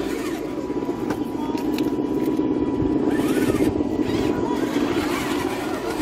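Radio-controlled scale crawler's electric motor and geared drivetrain whirring steadily at low crawl speed as it climbs over rock, a little louder partway through.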